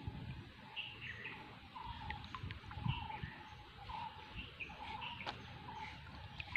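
A bird calling over and over, short two-part notes about once a second, with a faint low rumble underneath.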